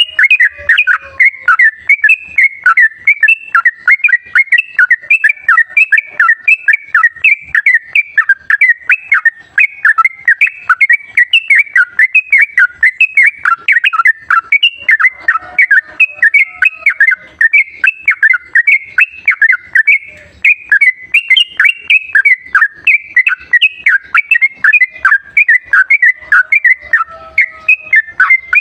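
Yellow-vented bulbul (trucukan) song played as a lure recording: a loud, unbroken stream of quick whistled notes, many per second, bending up and down at about the same pitch.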